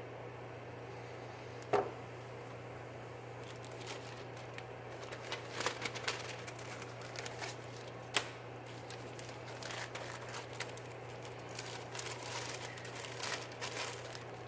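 Light, scattered scraping and rustling as an AUS-8 Rat 1 knife blade is drawn along a 6-micron strop. Two sharp clicks, about 2 seconds and 8 seconds in, are the loudest sounds, over a steady low hum.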